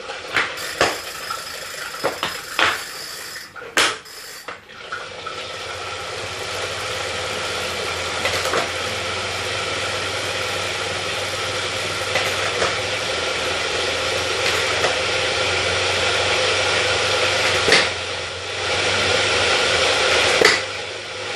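Elite Turbo Muin direct-drive fluid trainer spinning up under pedalling: a few clicks and knocks at first, then the chain and fluid unit settle into a steady whirr with occasional clicks. It carries a rhythmic "whoom whoom" knocking, which the owner takes for something inside the unit sitting angled instead of in a straight line.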